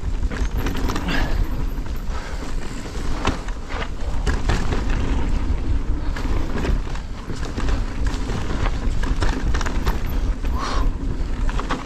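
Cube Stereo Hybrid 160 electric mountain bike descending a rough trail at speed: a clatter of many small knocks and rattles from the tyres, chain and suspension over stones and roots, over a constant low rumble of wind on the microphone.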